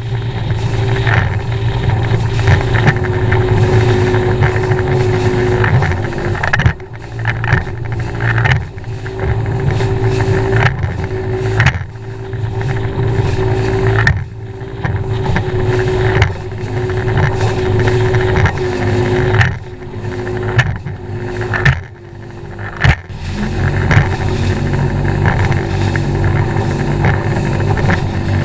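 Bass boat's outboard motor running at speed over choppy water, with rushing wind and spray noise over a steady engine tone. The sound dips briefly several times.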